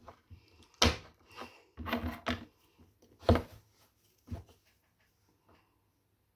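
Handling noises: a few short knocks and bumps, the loudest about three seconds in, as objects are picked up and moved close to the microphone.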